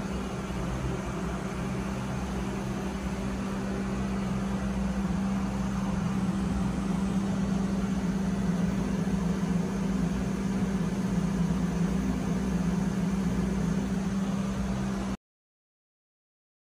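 Steady machinery hum of a ship's engine room, a constant low drone under a wash of noise, which cuts off suddenly to silence near the end.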